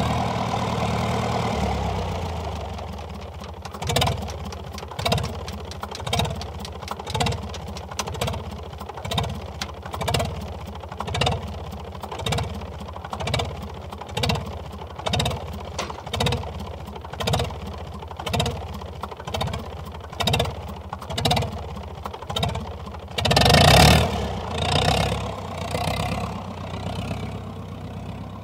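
Tractor's Perkins diesel engine running, then dropping to a lower idle about two seconds in. Over the idle comes a sharp knock about once a second, with one louder, longer clatter near the end.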